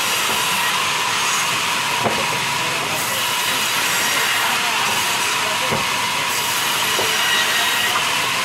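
Sawmill band saw running and cutting lengthwise through a small log as it is fed past the blade: a loud, steady hiss with a faint high whine. A few short knocks of wood come through it.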